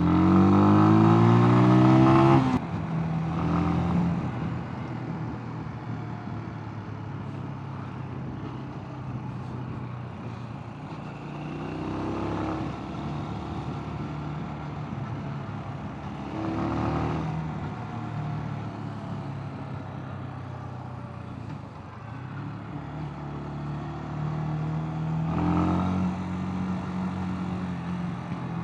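Mash Two Fifty 250 cc single-cylinder motorcycle engine under way: the revs climb steeply for the first two seconds and then fall away, after which it runs lower and steadier, with three shorter rises in revs later on.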